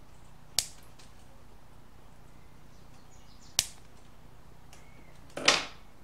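Two sharp clicks of pliers at the copper winding of a washing-machine motor stator, about three seconds apart, then a louder, rougher noise lasting about half a second near the end.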